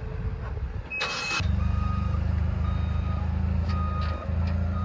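Forklift engine running and pulling a boat trailer, its note rising sharply about a second and a half in after a short hiss, while its reversing alarm beeps about once a second.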